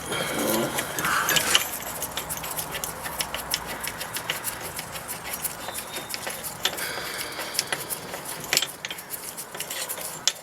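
Small metal parts of a brake piston retraction tool clicking and clinking irregularly as the tool is set up against a brake caliper, busiest in the first second or so.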